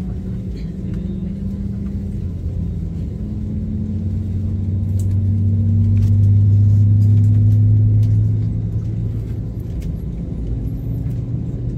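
Airliner jet engines heard from inside the cabin during taxi: a steady low hum and rumble that swells to its loudest in the middle, the pitch edging up slightly as thrust comes up, then eases back about two-thirds of the way through.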